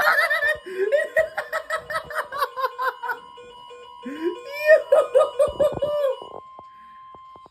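A weather radio's steady single-pitch alert tone sounds and cuts off suddenly just before the end. Over it, people laugh hard twice: for the first three seconds, and again from about four to six seconds in.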